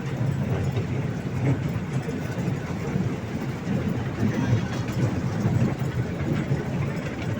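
Park toy train running along its track, a steady rumble heard from on board.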